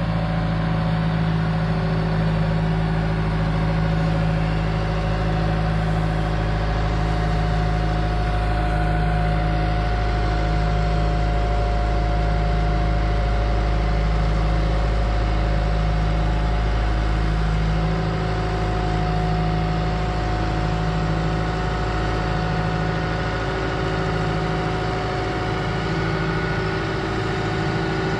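A 120 excavator's diesel engine running steadily under load, with a steady whine over it, as the machine lifts and swings a heavy roof truss. The low engine note eases slightly about eighteen seconds in.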